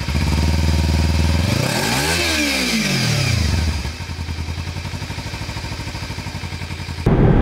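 Motorcycle engine idling, revved up and back down once about two seconds in, then settling into a steady, pulsing idle that cuts off abruptly near the end.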